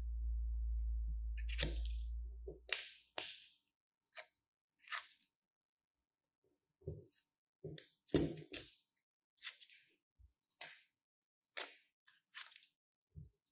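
Steel scissors snipping through small squares of thin green paper, more than a dozen crisp, separate cuts at an uneven pace. A steady low rumble runs under the first three seconds and stops.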